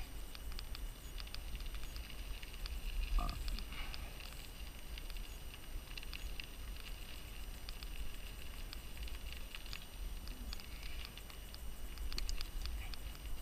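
Mountain bike rolling along a dirt singletrack, picked up by a camera riding with it: a steady low rumble of vibration and wind under a continuous run of small clicks and rattles from the tyres and bike.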